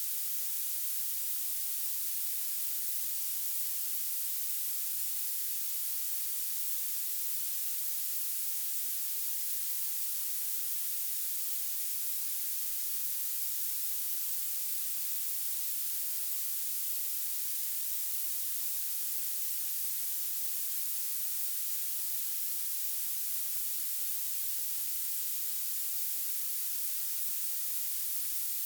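Violet noise: a steady, even hiss weighted heavily toward the very highest pitches, with almost no low end.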